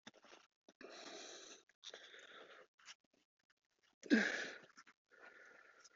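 A man breathing hard and heavily with effort, with a short strained grunt about four seconds in, as he forces a very tight urethane tire onto a bandsaw wheel.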